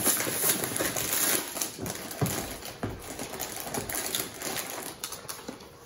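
Crinkling and crackling of a small plastic snack packet being pulled out of its cardboard box and opened, loudest at first and thinning out toward the end.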